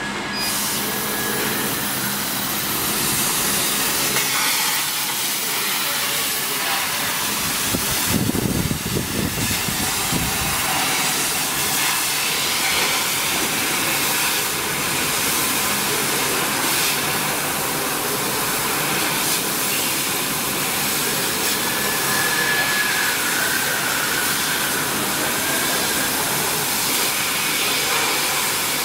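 150 W CO2 laser cutting machine running as it cuts 5 mm plywood: a steady hiss of air and fans throughout, with a brief low rumble about eight seconds in.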